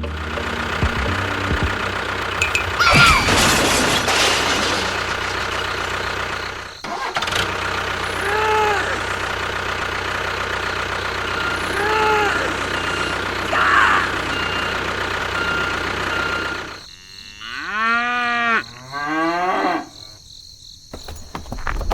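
A steady engine-like running sound with cattle mooing over it several times, and a loud rushing burst about three seconds in. The engine sound stops about seventeen seconds in, and the moos that follow are louder and longer.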